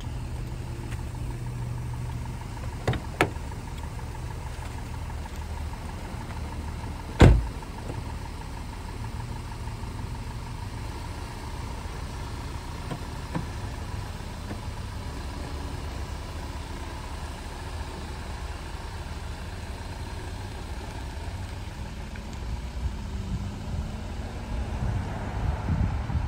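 Volkswagen CC idling steadily, with a single loud thump about seven seconds in as a car door shuts. Near the end the engine note rises and shifts as the car pulls away.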